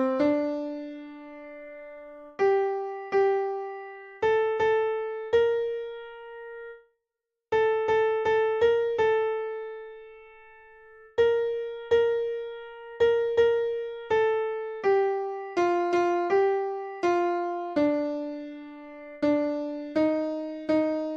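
Piano playing a single vocal part's melody, one note at a time with no accompaniment or singing: a part-learning track. Each note rings and fades, with a brief silence about seven seconds in.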